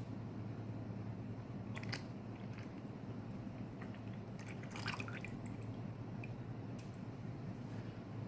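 Lye solution being poured into melted soap oils in a mixing bucket: a few light clicks and small drips over a steady low hum.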